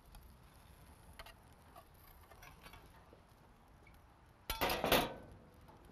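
Metal grilling spatula and tongs: a few faint clinks as the chicken goes onto the platter, then a loud metal clatter lasting about half a second, a little after four seconds in.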